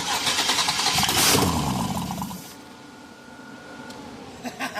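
Engine cranking over on the starter and coughing, catching briefly, then winding down and dying after about two and a half seconds: a first sign of firing on a freshly wired engine.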